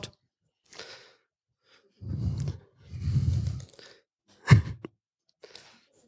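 A person breathing and sighing close to a handheld microphone in a few separate breaths, with one short voiced sound about four and a half seconds in.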